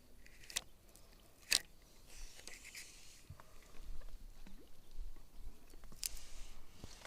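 Close handling noises: a few sharp clicks and knocks, the loudest about a second and a half in, with short bursts of rustling.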